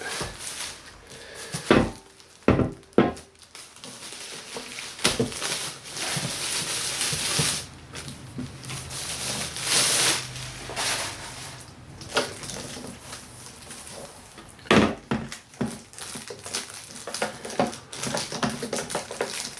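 Packaging being handled and pulled away from a turntable: plastic wrap and cardboard rustling, with irregular knocks and thumps.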